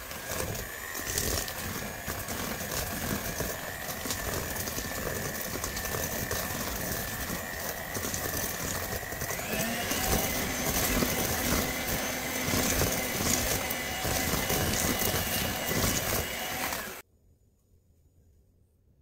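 Electric hand mixer running, its beaters working egg into creamed butter and sugar and clattering in a stainless steel bowl. Its whine steps up slightly about halfway through, and it cuts off suddenly near the end.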